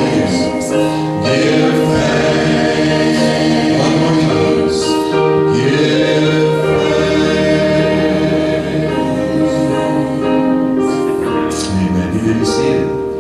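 A small mixed group of men's and women's voices singing a gospel song in harmony through microphones, with long held notes.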